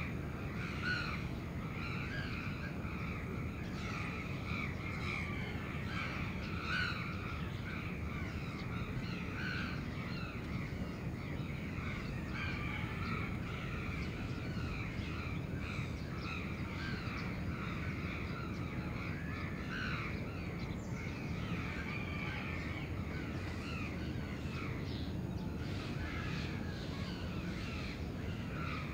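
A crowd of crows cawing again and again, calls overlapping, over a steady low rumble of the city.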